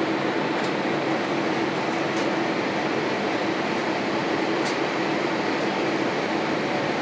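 Steady cabin noise of a Boeing 787-8 airliner in cruise: an even rush of airflow and engine noise from its Rolls-Royce Trent 1000 engines, with a steady low hum underneath.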